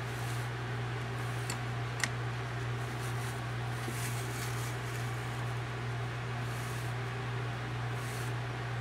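Steady low hum over an even background hiss, with a short click about two seconds in.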